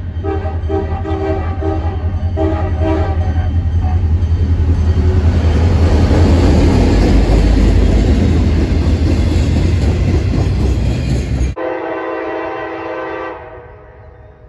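A diesel locomotive's horn sounds in several short blasts as a freight train approaches, then the freight cars rumble loudly past close by. After a sudden cut about 11 seconds in, another locomotive horn sounds one blast of about two seconds and fades.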